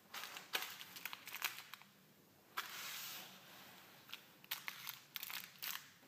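Thin plastic wrapping of a small surprise-egg toy crinkling and tearing as it is opened by hand: two spells of sharp crackles with a longer rasp between them, about two and a half seconds in.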